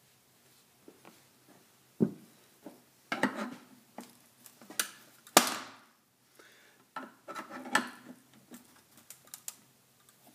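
Steel pry bar scraping and clanking against a small metal keypad gun safe as its lid is pried open, a run of sharp metal knocks and scrapes, the loudest about five seconds in.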